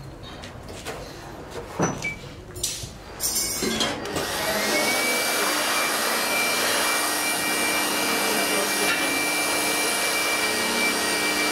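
A few knocks and scrapes, then about four seconds in a handheld electric air blower switches on: its motor whine rises quickly, then it runs steadily with a loud rush of air. It is blowing loose sand out of a sand-casting mould cavity.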